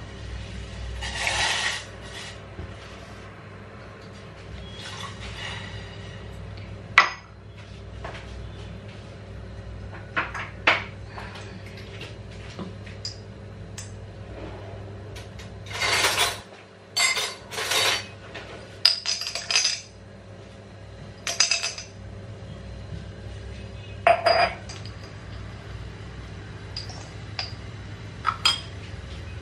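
Kitchen clatter while tea is being made: steel pans, a mug and spoons clinking and knocking on the counter and stove at irregular moments, with a few short scrapes, over a steady low hum.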